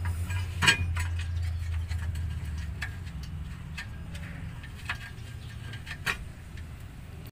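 A few sharp metal clicks and clinks of hand tools against the underside of a vehicle, spaced a second or two apart, the loudest under a second in, over a steady low hum.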